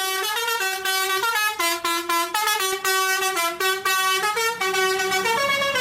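Telolet bus horn, a multi-tone musical horn, playing a quick tune of short notes that step up and down one after another without a break.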